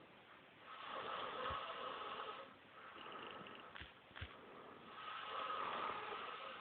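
Slow snoring: two long snores, the first starting just under a second in and the second about five seconds in, each lasting nearly two seconds, with a few faint clicks between them.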